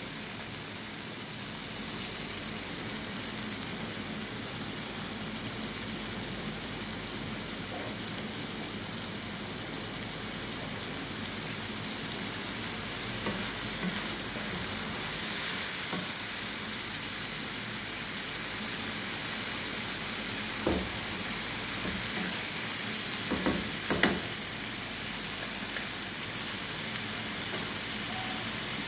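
Chicken hearts frying in oil and sauce in a non-stick pan, a steady sizzle throughout. A few short knocks from a wooden spatula stirring them come about halfway through and again near the end.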